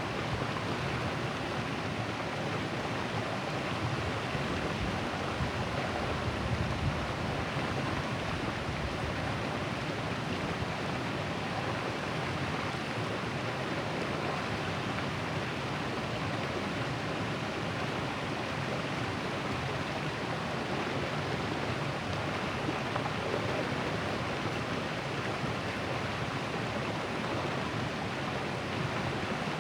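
River water flowing and rushing steadily, an even, unbroken rush of water noise.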